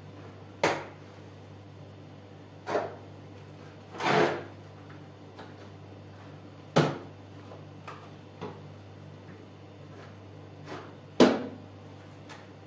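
Steel plastering trowel knocking and scraping against the hawk and the wall as wet plaster mortar is loaded and spread. There are five sharp strokes a couple of seconds apart, the one at about four seconds drawn out into a short scrape, with a few lighter taps between them.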